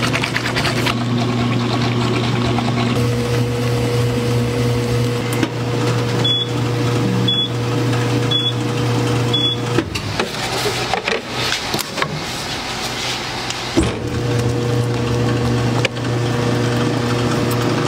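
Ice cream batch freezer running with a steady motor hum. Four short high beeps about a second apart sound, the motor stops, and about four seconds later it starts again while the ice cream is pushed out through the door chute.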